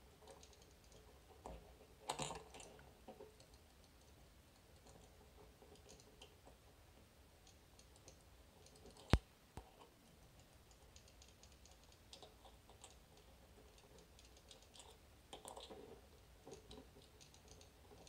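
Faint, scattered small clicks and rattles from the magnetic tumbler pins of a Miwa EC lock, as they are probed one at a time with a magnet under light tension, made louder through a small amplifier. One sharp, louder click comes about nine seconds in.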